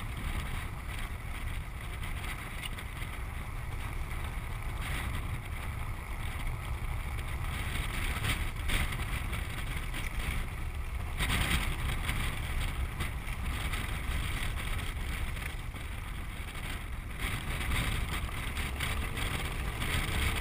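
Steady wind rush and rolling rumble of a land yacht under sail across a hard dry lake bed, picked up by a camera mounted on the craft, swelling a little in strength now and then.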